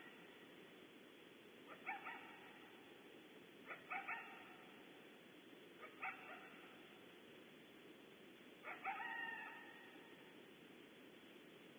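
Coyote barking, faint: a short bark or quick double bark about every two seconds, four in all, the last one longer and drawn out. A steady low hiss lies underneath.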